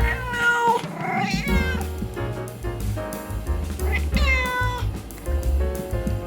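A cat meowing several times, with the longest meow about four seconds in, over background music with a steady beat.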